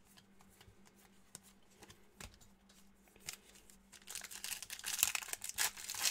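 Trading cards sliding and flicking softly in the hands, then from about four seconds in a foil trading-card pack wrapper crinkling and crackling as it is opened.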